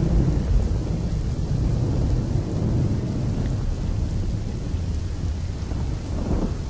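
A steady low rumble under a soft hiss, with no separate knocks or strikes.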